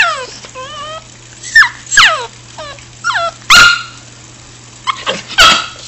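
Cavachon dog whining and yipping in excitement at the prospect of a walk: a run of high-pitched yelps that fall in pitch, with two louder barks, about three and a half and five and a half seconds in.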